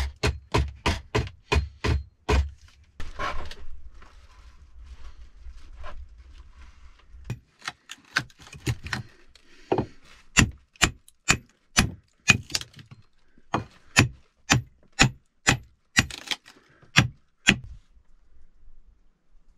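Sharp hammer blows on wood, about three a second at first, then a few seconds of quieter scraping, then a second run of about twenty blows at roughly two a second, in which a hammer drives an axe wedged into the timber door frame. The blows stop a couple of seconds before the end.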